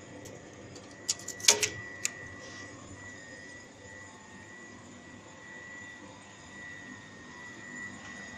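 Plasma cutting machine running before the cut: a steady high whine over a faint hiss, with a short cluster of sharp clicks about a second and a half in.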